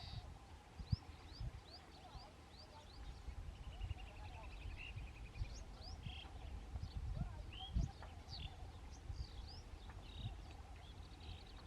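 Asian pied starlings (pied mynas) calling among house sparrows: a steady run of short high chirps and whistled notes, with a rattling trill about four seconds in and another near the end. A few low thumps sound underneath.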